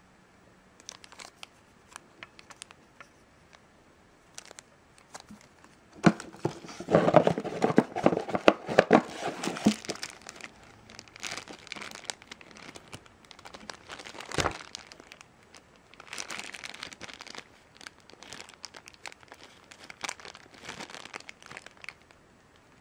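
Thin clear plastic bags crinkling as they are handled, with a long stretch of dense crinkling from about six to ten seconds in and lighter crinkling later. A single sharp click comes about fourteen seconds in.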